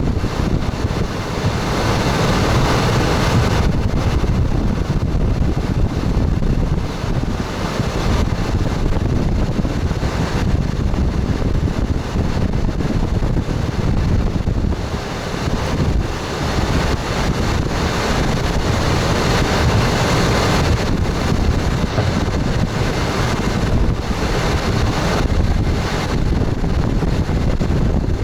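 Moving express train heard from its front cab: the steady running noise of wheels on the rails and the rumbling carriage, swelling and easing slightly.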